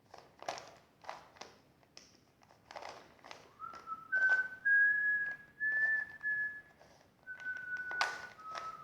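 A man whistling a short tune, single clear notes that step up and then back down, over the quick clicking of Rubik's cube faces being turned by hand, with the clicks coming throughout and the whistling starting about three and a half seconds in.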